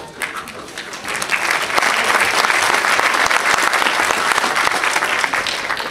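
Audience applauding: clapping that builds over the first two seconds, holds steady, then thins out near the end.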